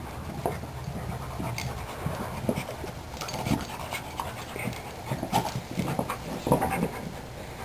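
Bull Mastiff panting while mouthing and nosing a rubber basketball, with irregular short knocks and clicks from the ball being bitten and pushed.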